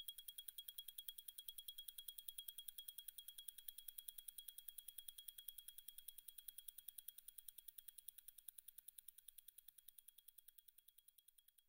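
Zenith El Primero 3600 automatic chronograph movement ticking at 36,000 beats per hour, about ten ticks a second. A fast, even, high-pitched ticking that fades away over the last few seconds.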